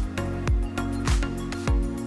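Background music with a steady beat: a deep kick drum about every 0.6 seconds over sustained synth chords.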